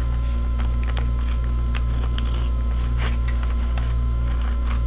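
Scissors snipping through lined paper: short, sharp clicks spaced irregularly, over a loud, steady electrical hum.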